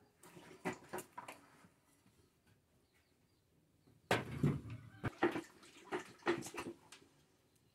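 Handling knocks: a wooden chair set down and a plastic bucket moved about, a few light knocks in the first second or so, then a louder cluster of knocks and scrapes from about four to seven seconds in.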